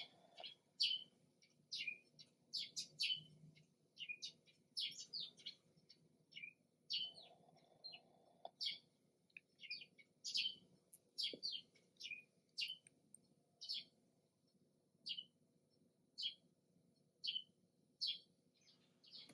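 A small bird chirping over and over: short high chirps, about one to three a second and unevenly spaced, fairly faint.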